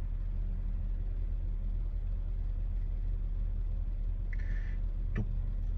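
Steady low rumble of road traffic, with a brief faint high tone about four and a half seconds in and a light click just after.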